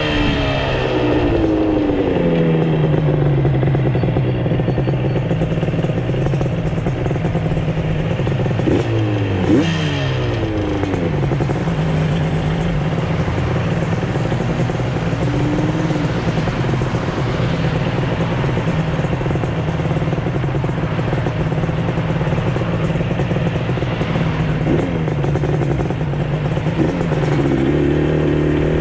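Yamaha RD350's two-stroke parallel-twin engine running under way on the road, fitted with freshly installed CNC-machined cylinder heads. Its pitch holds fairly steady for long stretches, with sharp changes in revs about nine seconds in and again near the end.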